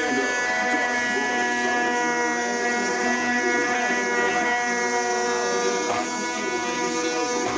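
DeWalt 5-inch random orbit sander with a dust bag running steadily, a constant motor buzz with a whirring pad, as it sands an oak cabinet door's inside lip with 120-grit paper.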